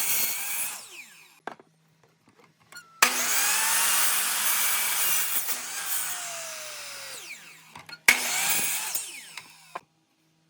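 A woodworking tool working wood in three separate runs: a short one at the start, a long one of about five seconds that tails off gradually, and another short one near the end.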